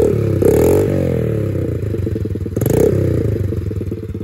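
Small Honda XR dirt bike's single-cylinder four-stroke engine running while ridden, revving up and back down near the start and again about two and a half seconds in.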